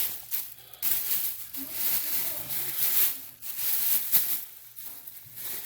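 Full vacuum-cleaner bags of dirt and dog hair being handled, rustling and shaking in irregular bursts with short pauses.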